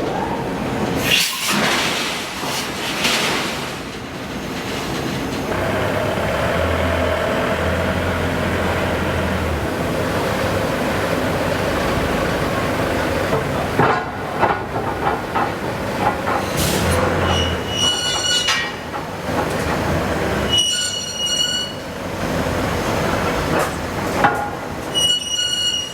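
Forge-shop machinery around a hydraulic forging hammer: a steady loud mechanical din broken by a few heavy knocks, with several short, high-pitched metallic squeals in the second half.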